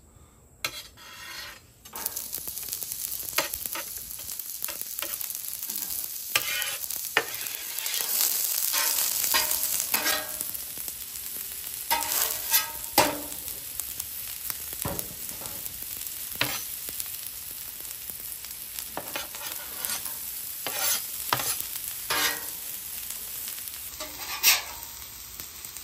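Sliced onions and mushrooms sizzling on a hot steel flat-top griddle, a steady hiss that starts about two seconds in. A metal spatula repeatedly scrapes and knocks on the griddle surface as the vegetables are spread out.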